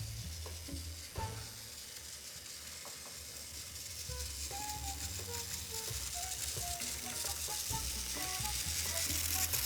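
Background music: a low bass line under short, separate higher melody notes, with a hiss that grows louder toward the end.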